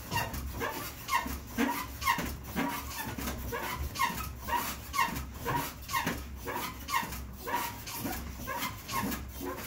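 Elliptical trainer squeaking with each stride: short, falling squeaks about twice a second over a low rumble that pulses at the same pace.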